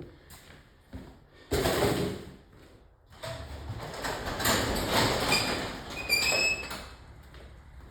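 A garage door being opened. There is a loud clatter about a second and a half in, then the door rumbles along for several seconds, with a short high squeal near the end.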